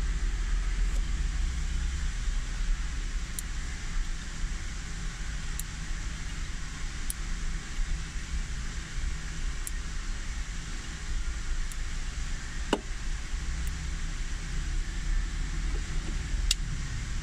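Steady low rumble of background noise, with faint sharp ticks every couple of seconds and one clearer click about two-thirds of the way through.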